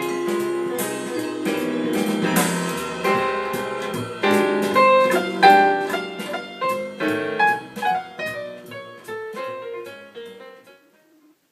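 Instrumental music with piano, a run of separate notes that grow sparser and fade out to silence shortly before the end.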